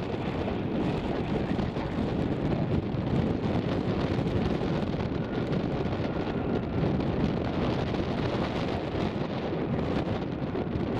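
Steady roar of a Bombardier CRJ-440's twin rear-mounted General Electric CF34 turbofans as it touches down and rolls out along the runway, mixed with wind rumbling on the microphone.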